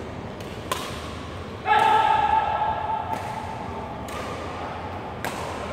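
Badminton rackets striking the shuttlecock with sharp cracks, once about a second in and again near the end. In between, a loud, steady high-pitched sound rings out just under two seconds in and lasts about a second.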